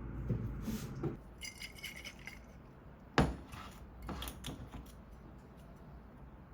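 Small metal objects jingling briefly, then a single sharp knock and a few lighter clicks.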